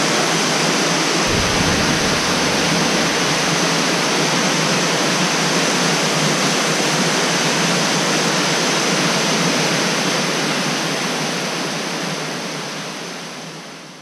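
Waterfall pouring into a rock pool, heard close up as a loud, steady rush of water that fades away over the last few seconds.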